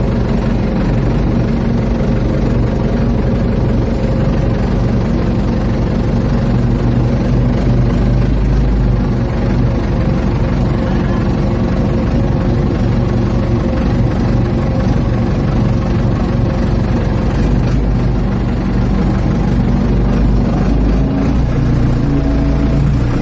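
Ford 755 backhoe engine running steadily at a fairly constant speed, loud and close.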